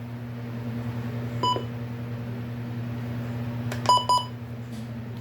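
Short, high-pitched electronic beeps: a single beep about a second and a half in, then a quick double beep near four seconds. A steady low hum runs underneath.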